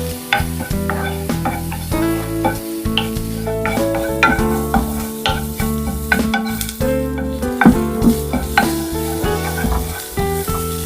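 Food sizzling in hot oil in a pan while being stirred, with a utensil clicking against the pan many times, over background music.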